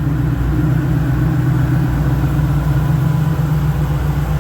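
Ford Mustang's newly rebuilt engine idling steadily, with an even, unchanging note after a hard break-in run to seat its file-to-fit piston rings. It is no longer smoking or pushing oil out of the exhaust.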